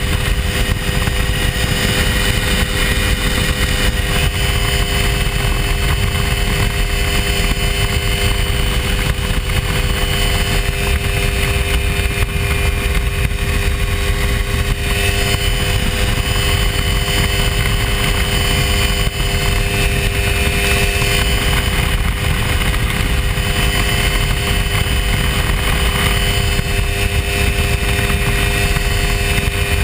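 Hy-Tek Hurricane ultralight's engine running steadily in flight at a constant pitch, over a loud low rushing noise.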